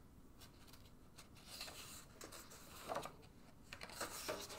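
A page of a hardcover picture book being lifted and turned: faint paper rustling and rubbing, busiest about three and four seconds in.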